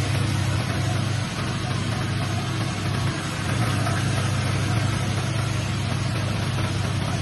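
Car engine idling steadily, a constant low hum with a hiss over it.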